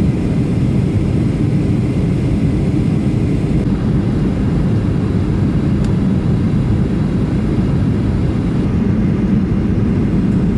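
Steady low roar of a jet airliner's engines and rushing air, heard from inside the passenger cabin.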